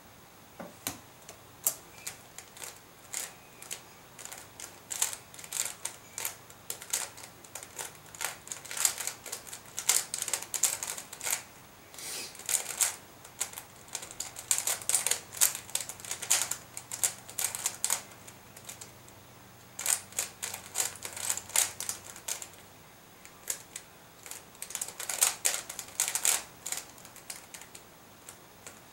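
Square-1 puzzle being turned at speed: rapid bursts of plastic clicking and clacking as its layers are twisted and sliced, broken by brief pauses.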